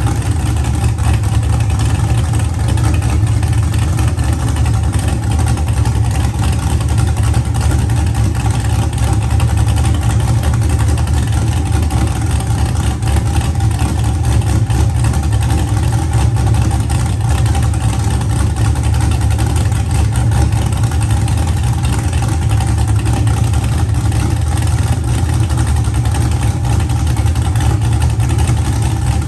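LS V8 engine with a freshly installed big cam, idling steadily.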